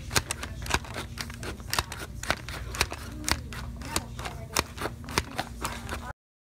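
Green plastic plunger food chopper clacking as it is pressed down again and again on apple pieces, about two sharp clicks a second, stopping suddenly near the end.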